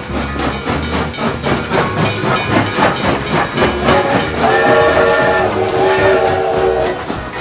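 Rail King battery-powered toy steam locomotive passing close on plastic track, its built-in chugging sound effect beating rapidly. From about four seconds in, a steam-whistle sound effect sounds twice in a row, stopping shortly before the end.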